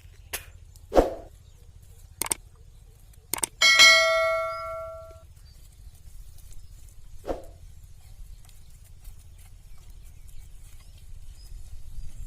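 A few sharp knocks, then a single metallic clang about three and a half seconds in that rings on for a second or so before fading, over a steady low hum.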